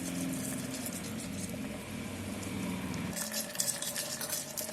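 Onion, capsicum and sauces sizzling as they fry in an electric kettle. About three seconds in, a spoon or spatula starts clicking and scraping against the kettle as the mixture is stirred.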